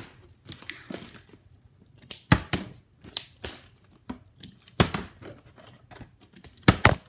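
Partly filled plastic water bottle being flipped and knocking down on a wooden floor again and again: a sharp thud a little over two seconds in, another near five seconds, and a quick double near the end, with softer handling knocks and crinkling of the plastic between.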